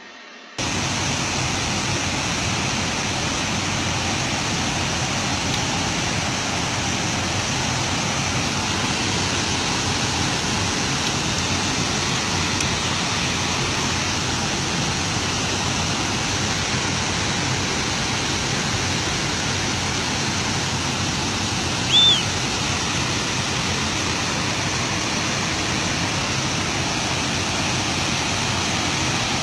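Spillway flow from the Cajuru dam's opened crest gates: water pouring down the concrete spillway, a steady, even rushing noise. A single short high whistle sounds once, about three quarters of the way through.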